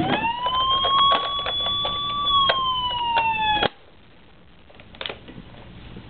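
Electronic siren sound effect from a battery-powered Hess toy truck: one wail rises, holds, then slides slowly down and cuts off suddenly a little past halfway, with clicks over it. A faint knock follows near the end.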